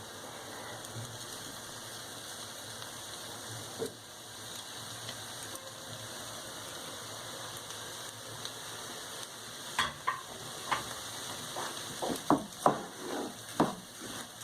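Onions and peas frying in oil in a pan, a steady sizzle. From about ten seconds in, a series of sharp knocks and scrapes of a utensil stirring against the pan as the rice goes in.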